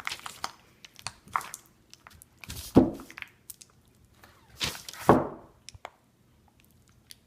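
Honeycomb being smashed up in a bowl to crush the wax cells and free the honey: irregular thuds with wet, crunchy squishes, the heaviest thumps about three and five seconds in.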